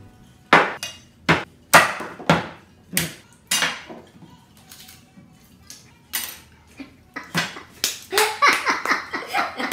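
A series of sharp knocks on a wooden cutting board: about six in the first four seconds, then a few more spaced out. Near the end a man's voice is heard.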